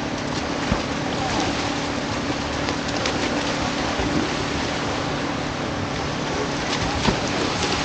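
Triathlon swimmers running into shallow water: a steady wash of splashing with a few sharper splashes.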